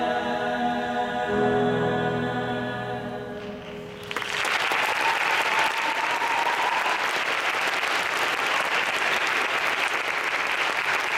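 Young men's a cappella choir holding its final chord, which fades out about three and a half seconds in. Then the audience breaks into steady applause.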